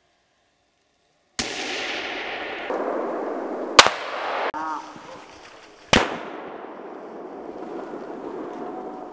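Two hunting-rifle shots about two seconds apart, the first the louder, over a steady background hiss that cuts in suddenly after about a second and a half of silence.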